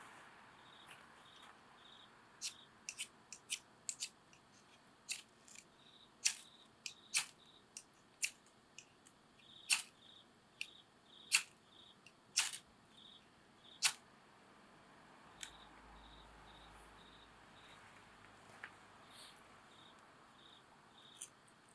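Wood fire crackling with sharp, irregular pops, busiest in the first two-thirds and thinning out near the end. Under it an insect chirps in short, evenly repeated high pulses, a few a second.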